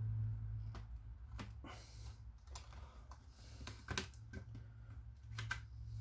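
Scattered light clicks and ticks of a laptop's plastic housing being handled and pulled back during screen disassembly, irregularly spaced, over a low steady hum.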